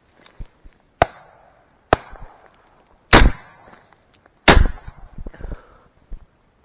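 Four shotgun shots in quick succession, the last two the loudest, each trailing off with a rolling echo.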